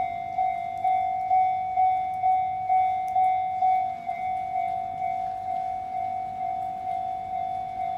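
Japanese railway level-crossing warning bell ringing, an even ding-ding of one ringing pitch about twice a second, which signals an approaching train.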